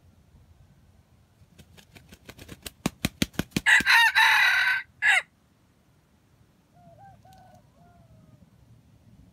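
A wild junglefowl rooster claps its wings in a quickening run, then gives one loud crow that ends in a short, clipped final note. A much fainter, lower crow follows a couple of seconds later.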